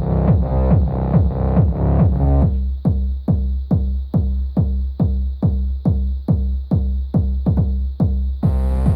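Bass-heavy electronic dance track playing through a genuine JBL Charge 3 portable Bluetooth speaker: a steady beat of about two and a half deep, falling bass hits a second. The higher parts drop out about two and a half seconds in, leaving the bass beat, and a fuller, brighter section comes in near the end.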